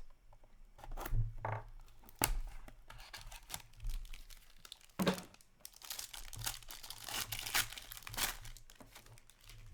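Plastic and foil wrapping on a box of trading cards being torn open and crinkled by hand, in irregular rips and rustles.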